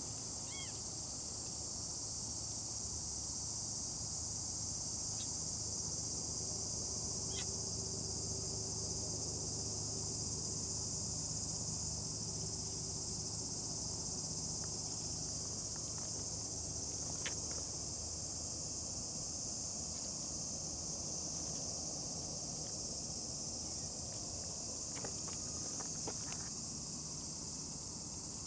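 Steady high-pitched chorus of insects, with a few faint short chirps and ticks over it.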